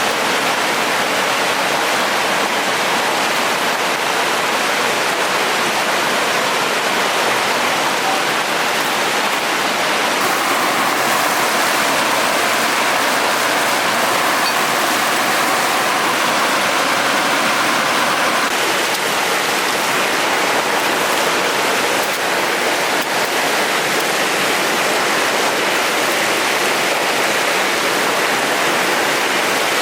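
Steady rushing of a mountain stream or small waterfall in a gorge, an even, unbroken hiss of running water.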